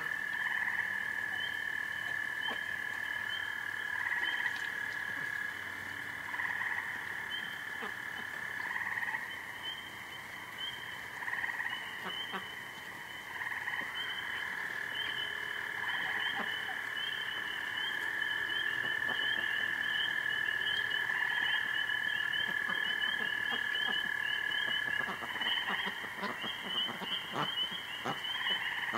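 Night chorus of frogs: a steady high trill, with calls repeating every two seconds or so and a higher pulsing chirr above them.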